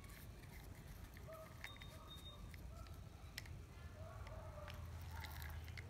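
Faint scattered clicks from a used spinning fishing reel being handled, over a low hum, with a few faint short chirps.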